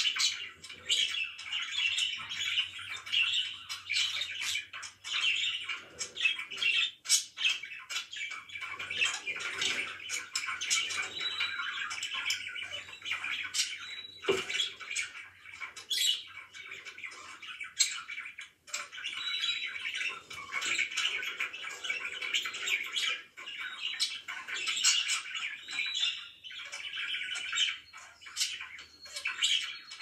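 Pet budgerigars chirping and chattering without a break, a busy warble of short sharp notes and squawks.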